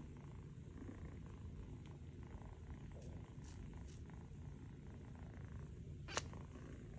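Ginger kitten purring faintly, a low steady rumble, with one short click about six seconds in.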